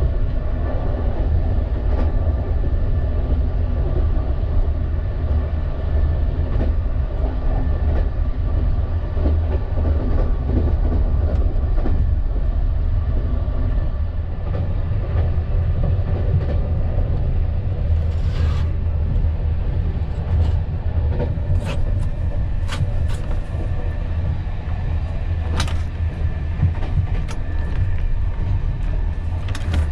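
Steady low rumble of a train, heard from inside a sleeper-coach compartment. A few sharp clicks come in the second half.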